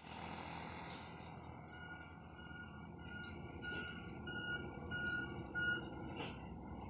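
Truck traffic running past on the highway, with a faint high beep repeating about every half second and two short hisses.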